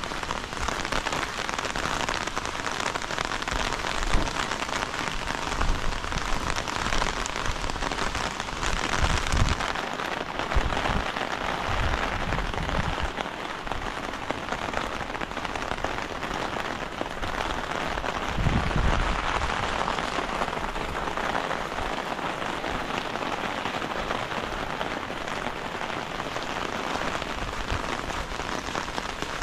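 Heavy rain falling steadily, a dense even hiss of drops, with a few low thuds now and then.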